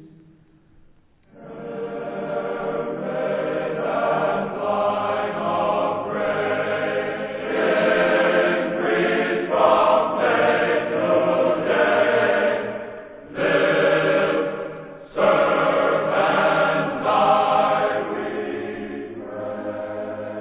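Choir singing slow, sustained phrases as background music. The sound dips briefly at the start, a new phrase enters about a second in, and there are short breaks between phrases near the middle.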